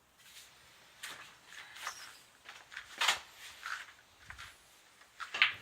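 A few short, irregular scuffing noises, the loudest about three seconds in and another just before the end.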